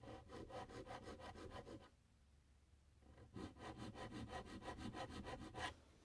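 Large triangle file cutting notches into soft brass, in two runs of quick back-and-forth strokes, about seven a second, with a pause of about a second and a half between the runs.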